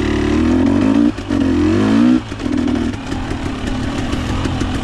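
Dirt bike engine revving up twice, each rise broken by a brief drop in power, then running more steadily, with scattered clicks over it.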